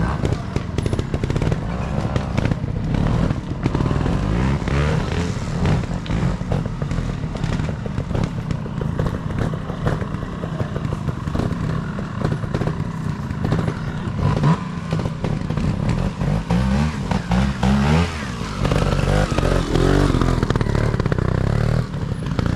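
Trials motorcycle engine working through a section, the throttle blipped so the revs rise and fall in short bursts, with sharp clicks and clatter throughout.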